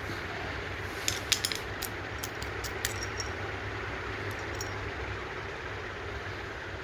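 Light metallic clicks and clinks of hand tools and small metal parts being handled, clustered about one to three seconds in, over a steady low hum.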